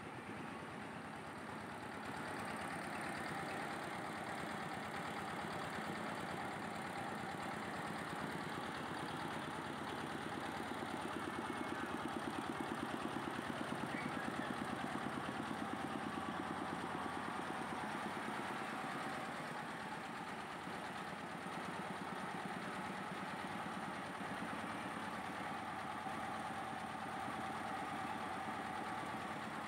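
Engine of a truck-mounted mobile rice mill running steadily and driving the belt-driven rice huller as it mills, a little louder in the middle.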